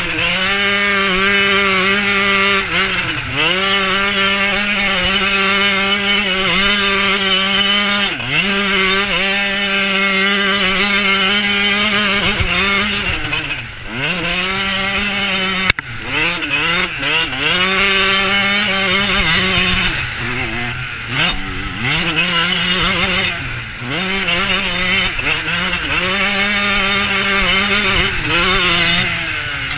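Dirt bike engine running hard at high revs, heard from the rider's helmet. Its pitch drops sharply and climbs back several times as the throttle is rolled off and opened again. There is a sharp knock about halfway through.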